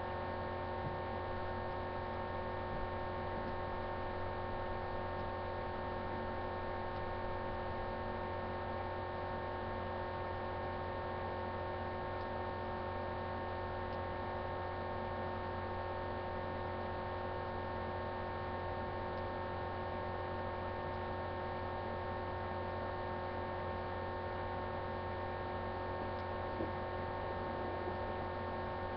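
Steady electrical hum: a constant low drone with several steady higher tones over a faint hiss, unchanging throughout.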